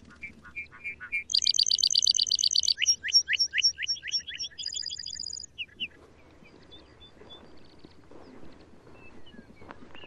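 Male lark bunting singing one song: a few short opening notes, a loud fast trill about a second in, a run of slurred notes, then a buzzy trill, with the song ending about six seconds in. A few faint scattered notes follow.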